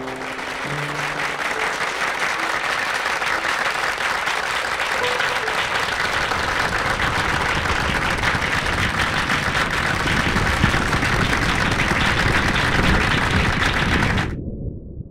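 The last piano notes die away in the first second, then an audience applauds steadily, growing a little louder, until the applause cuts off suddenly near the end.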